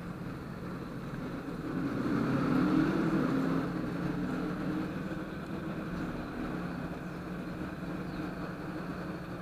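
Vehicle engine hum that swells about two to three seconds in and then slowly fades.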